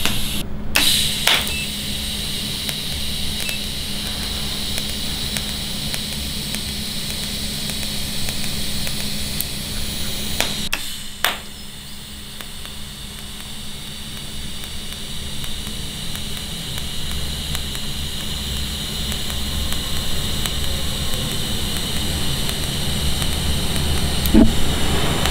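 Electric welding arc burning steadily on a square steel tube corner joint: an even hiss over a constant hum, with a brief break about eleven seconds in.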